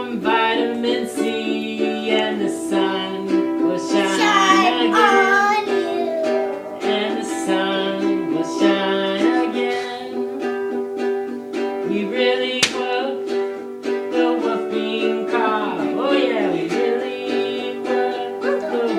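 Ukulele strummed in a steady song accompaniment, with a voice singing along in places.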